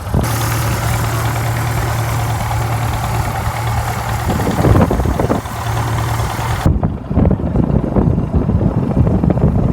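A boat's engine running steadily, with a wide hiss of wind and water over it. About two-thirds of the way through, the sound changes abruptly to a duller, lower rumble.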